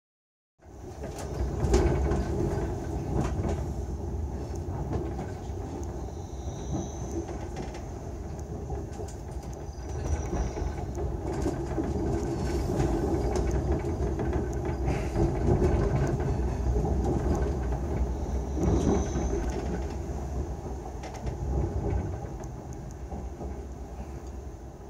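Running noise of a Railjet passenger coach heard from inside: a steady rumble of wheels on the track, with occasional sharp clicks and a few short high-pitched squeals.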